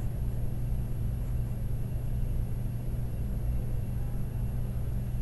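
Steady low hum of room noise, even throughout, with a faint high whine above it.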